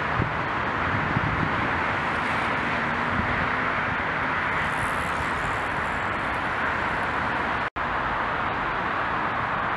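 Steady rush of distant road traffic, an even hiss in which no single vehicle stands out. It drops out for an instant near the end.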